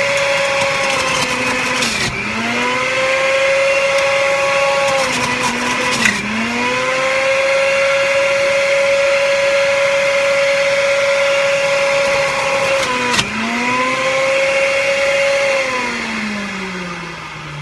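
Centrifugal juicer motor running with a steady high whine. Its pitch dips three times, each with a sharp knock, as produce is pushed down the chute and the motor bogs under the load before spinning back up. Near the end the pitch slides steadily down as the motor slows.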